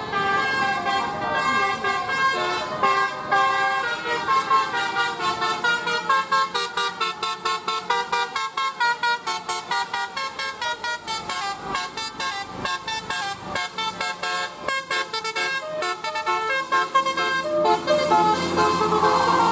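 Bus telolet horn: a multi-tone electric bus horn playing a tune of stepped notes, with a run of rapid short toots through the middle.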